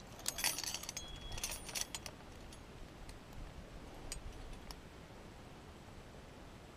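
Climbing gear clinking: light metallic clicks and rustles of carabiners, quickdraws and rope, dense in the first couple of seconds, then a few scattered clicks until about five seconds in, after which only faint steady background noise remains.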